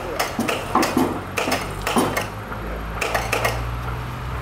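Metal clinks and knocks from parts of a polyethylene pipe butt fusion welding machine being handled, then a low steady motor hum from about two seconds in.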